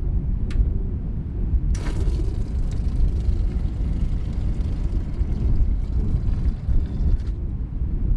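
Wind buffeting the microphone in a low, fluctuating rumble. From about two seconds in until near the end, water runs from a garden hose into a bucket with a light hiss.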